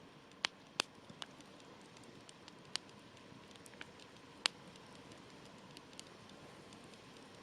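Wood campfire crackling and popping: a steady low hiss of flames with sharp single snaps at uneven intervals, the loudest about half a second in, just under a second in, and about four and a half seconds in.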